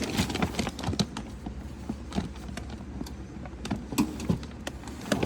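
Irregular light clicks and knocks of small hard objects being handled, over a low steady hum.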